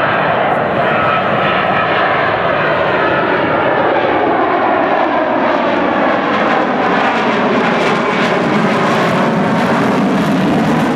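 Loud jet noise from a Rockwell B-1B Lancer's four General Electric F101 turbofans as the bomber passes overhead. The engine tones slide down in pitch as it goes by, and a harsher, crackling edge grows in the second half.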